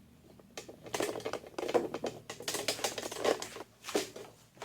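Rapid, irregular clicking and tapping for about three seconds, the sound of small hard objects being handled.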